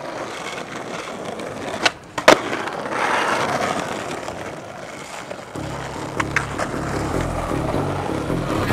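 Skateboard wheels rolling over rough asphalt, with two sharp clacks of the board about two seconds in, less than half a second apart, the second the loudest. Music with a low bass line comes in a little after halfway.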